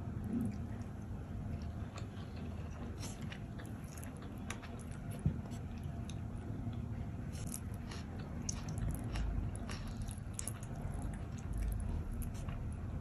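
Eating rice by hand: irregular soft, wet clicks and smacks of sticky rice mixed with fried egg and dal, over a steady low hum.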